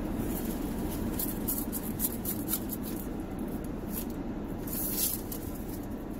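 Steady hum of a car's air conditioning and running engine inside the car cabin, with crinkles and rustles of a paper napkin and a cardboard food box being handled. The rustling is loudest a little after five seconds in.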